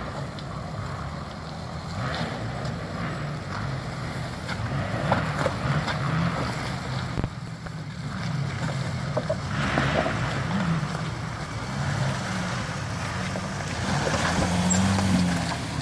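Jeep Grand Cherokee CRD's V6 turbo-diesel engine working at low revs as the vehicle crawls through a rutted washout, its pitch rising and falling with the throttle, with the odd crunch of tyres on stones and mud.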